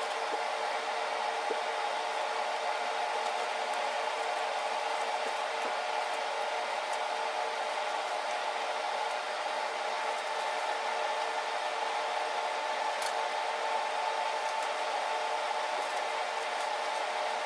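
Steady whirring of a motor-driven blower, running without change, with a constant hum.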